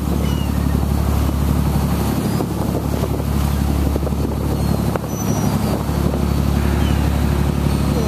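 Boat engine running steadily underway, a low drone, with wind and the rush of the wake.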